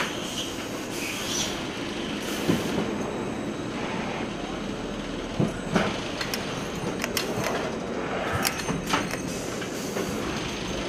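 Automatic tight-wrap bundling machine running: the steady mechanical noise of its flighted infeed conveyor, with several sharp clacks from the tamp and stacker mechanism at irregular intervals.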